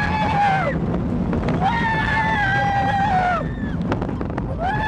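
Roller-coaster riders screaming: three long, high held screams, each dropping in pitch as it trails off, over the rumble of the coaster train and wind buffeting the microphone.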